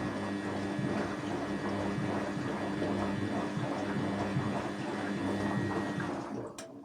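Washing machine running with water moving through it, a steady hum under a watery rush. It winds down and stops near the end with a single click.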